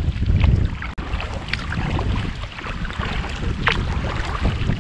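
Wind buffeting the microphone of a bow-mounted camera on a moving kayak, with short splashes and drips from paddle strokes in the water every second or so.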